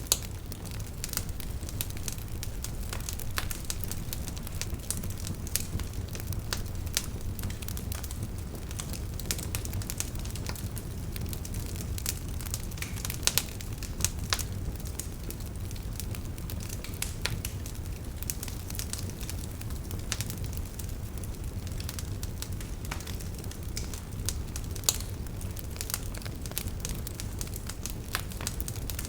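Campfire burning: a steady low rumble of flames with frequent irregular crackles and occasional louder pops of burning wood.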